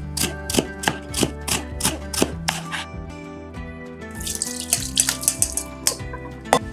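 A kitchen knife slicing through a vegetable on a cutting board, about three cuts a second for nearly three seconds. About four seconds in, water pours and splashes as a bowl of soaked vegetables is tipped into a sieve in a sink. Soft background music runs underneath.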